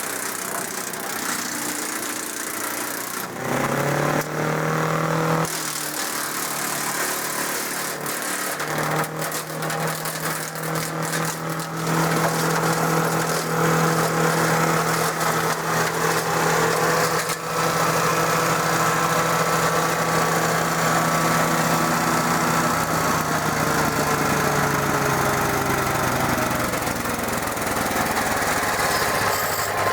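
DR 16.5 self-feeding wood chipper with its Briggs & Stratton engine running, speeding up about three and a half seconds in. A spell of crackling clatter about nine to twelve seconds in fits branches being chipped. The engine pitch sags from about two thirds of the way through.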